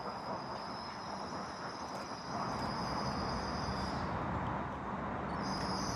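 Class 196 diesel multiple unit running into a station, a steady rumble with a thin high-pitched tone that drops out about four seconds in and returns near the end.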